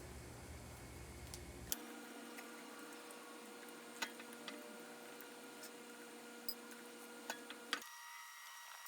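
Faint, scattered metallic clicks and taps of an Allen wrench on the bolts of a mini bike's chain sprocket as it is being unbolted from the wheel, about six clicks in all, the loudest a little under two seconds in.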